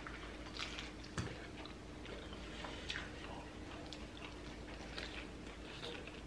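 Crunching and chewing as crispy fried corn-tortilla tacos are bitten and eaten: scattered small crackly crunches, with one sharper knock about a second in.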